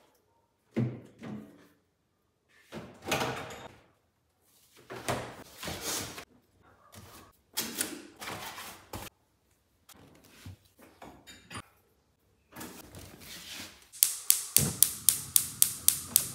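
Kitchen handling sounds in short separate bursts: the fridge being opened and groceries knocked and set down with thunks on a stone counter board. Near the end a gas hob's spark igniter clicks rapidly, about five clicks a second, as a burner is lit.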